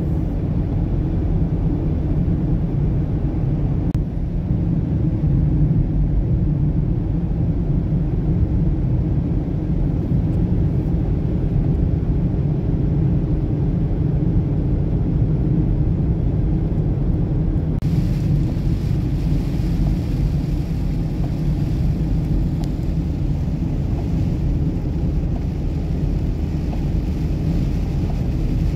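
Steady low rumble of a car's road and engine noise heard from inside the cabin at highway speed. About two-thirds of the way in, a brighter hiss joins it.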